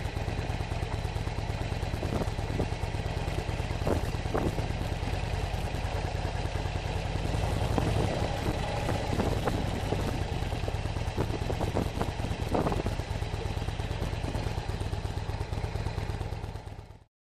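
Harley-Davidson V-twin engine running at low speed under an onboard rider's microphone, with knocks and rattles from riding over a rough dirt road. The sound fades out near the end.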